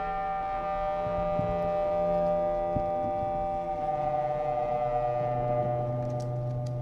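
Synthesizer drone: several steady tones held together, with a low note coming in about four seconds in and a few faint clicks near the end.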